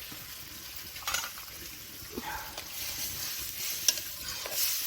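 Seasoned water heating in a pan on the stove, hissing and sizzling steadily as it comes to the boil, with a few light knocks and one sharp click about four seconds in.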